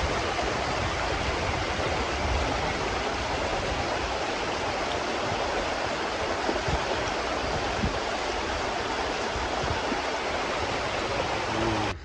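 A shallow, fast mountain stream rushing over stones and boulders, a steady, even wash of white water.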